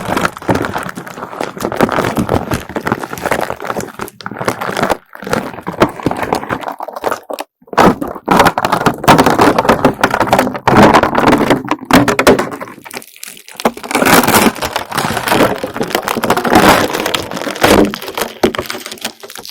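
Slime being peeled away from a surface: a dense run of sticky crackles and pops, in stretches broken by a few brief pauses.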